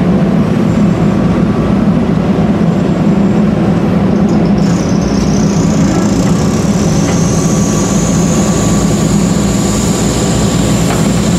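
A JCB 3DX backhoe loader's diesel engine running loudly and steadily close up while the machine works. About four and a half seconds in, a high thin whine joins it and slowly rises in pitch.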